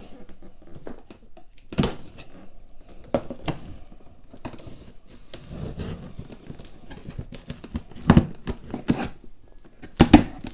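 A cardboard apple gift box being opened by hand: scattered sharp knocks and clicks of the cardboard and packaging, and a hissing scrape of about two seconds near the middle.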